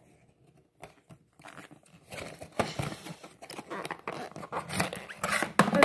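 Box packaging being torn and crinkled by hand while a toy train's box is opened: a few light rustles, then from about two seconds in a dense run of tearing and crinkling, loudest near the end.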